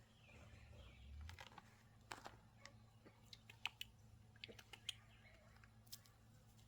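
Faint, irregular light clicks and ticks, about a dozen scattered through, over a low steady hum.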